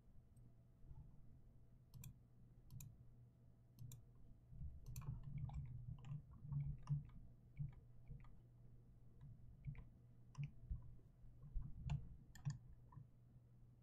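Faint, irregular clicks of a computer mouse while a CAD drawing is being worked, some in quick clusters in the middle, over a faint steady low hum.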